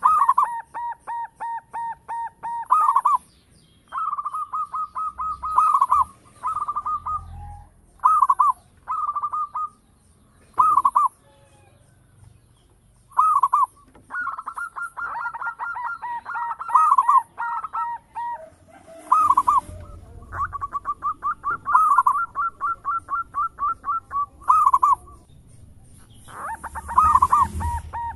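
Zebra dove singing: runs of rapid, quavering coos, each ending in a louder accented note, repeated with short pauses between. Faint high chirps recur in the background.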